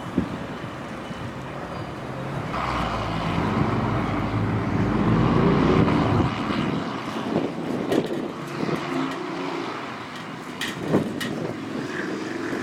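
Huddig 1260B backhoe loader's diesel engine running and revving up under hydraulic load from about two and a half seconds in, easing off after about six seconds, with several sharp metallic clanks, the loudest near the end.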